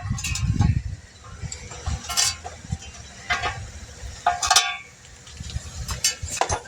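A handful of separate sharp metal knocks and clinks, a second or so apart, from hand tools handled during manual tire mounting, over a low rumble.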